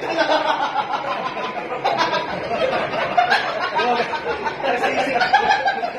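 Men's voices talking and chuckling.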